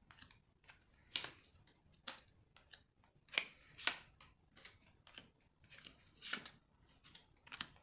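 Tarot cards being shuffled and handled: a run of short, irregular swishes and snaps of card against card.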